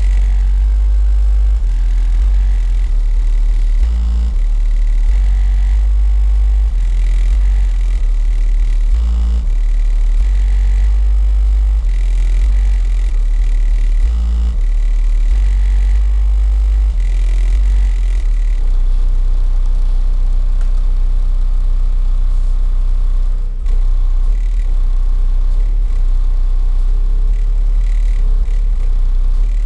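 Bass-heavy music played very loud through two RE Audio SXX 12-inch subwoofers in a car, heard from outside: deep bass notes change about once a second, then about 18 seconds in a single long steady bass note takes over.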